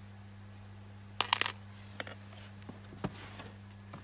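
Metal clip of a car seat's crotch harness clinking: one bright, ringing metallic clink about a second in, followed by a few faint clicks, over a steady low hum.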